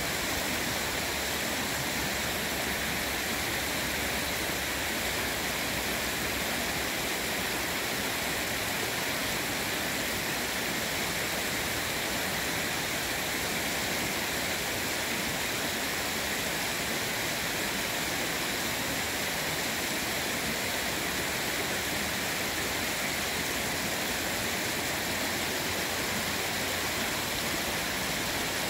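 Shallow stream water rushing and splashing over rocks in a small riffle of white water, a steady unbroken sound.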